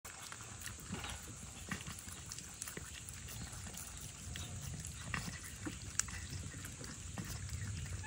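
Cats and rabbits eating at bowls close by: irregular small wet chewing and lapping clicks as the cats eat minced meat and the rabbits munch fresh greens, over a low steady rumble.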